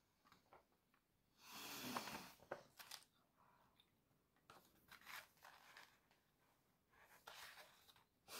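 Faint rustling of paper pages being handled, in three short spells with a couple of small clicks after the first.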